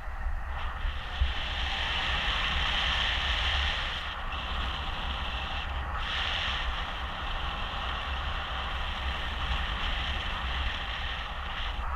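Steady rush of airflow over the microphone of a paraglider in flight, with a low rumbling buffet underneath.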